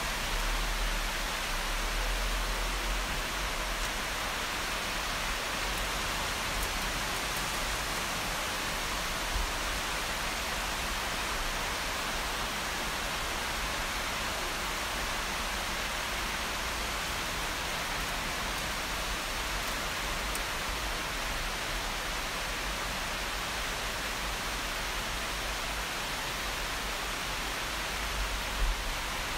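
Heavy rain falling steadily, a dense even hiss, with a couple of brief low bumps about nine seconds in and near the end.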